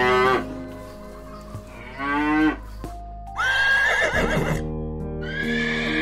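A cow mooing, then a horse whinnying with a rising, wavering pitch about three seconds in, over steady background music.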